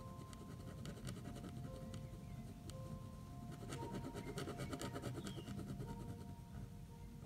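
A glitter pen rubbing and scratching on paper as it shades in colour, over soft background music with long held notes.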